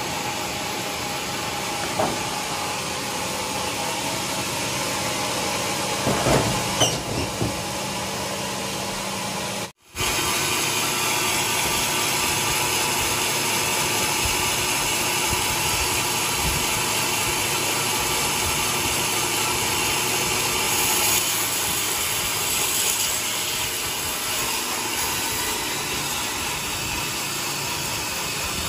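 Large sawmill running steadily, a dense hiss over a constant hum, with a few knocks about two seconds and six to seven seconds in. The sound drops out for an instant near ten seconds, then carries on.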